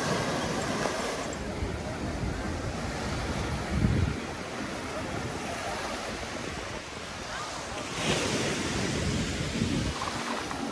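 Ocean surf breaking and washing on a beach, with wind rumbling on the microphone. A louder wash of surf comes in near the end.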